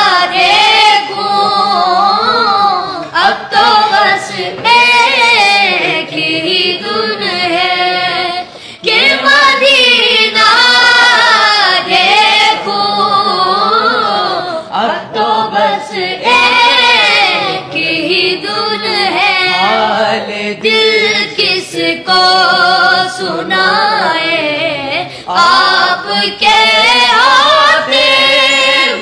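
Naat, devotional Urdu singing: a voice drawing out long, gliding melodic lines.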